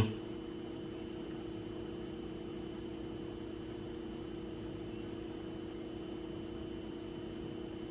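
A steady machine hum with a faint high whine above it, unchanging throughout.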